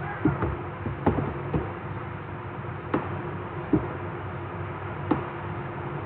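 Computer mouse button clicking about half a dozen times at irregular intervals as lines are placed with a drawing program's line tool, over a steady background hum.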